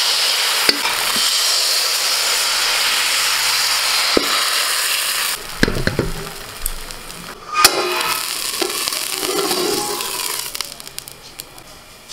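Rice-flour batter for soru chakli pitha sizzling loudly as it is poured into a hot aluminium kadai. The sizzle drops suddenly after about five seconds, then comes a few sharp knocks and a softer sizzle that fades near the end.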